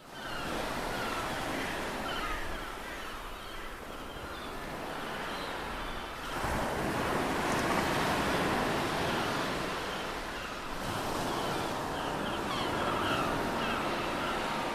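Ocean surf washing steadily, swelling louder about six seconds in, with faint short chirps above it.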